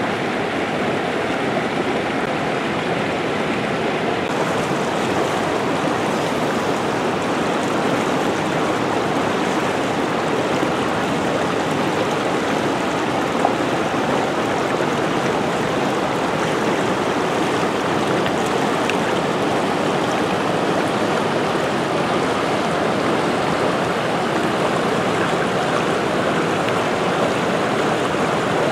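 River water rushing steadily, with one brief click about halfway through.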